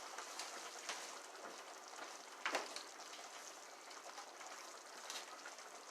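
Squash and spinach sizzling quietly and steadily in a pan on the stove, with a few light clicks and one louder click about two and a half seconds in.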